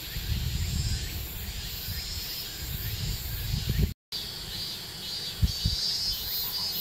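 Insects chirring steadily, with a high buzzing band and a faster, very high pulsing trill, over an uneven low rumbling noise on the microphone. The sound drops out briefly about four seconds in, where the picture cuts.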